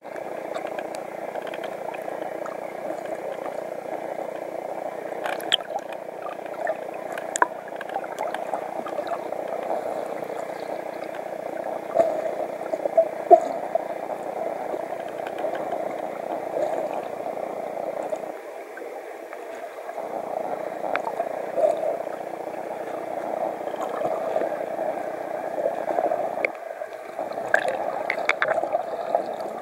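Muffled underwater ambience: a steady rush of water noise, with a few scattered sharp clicks.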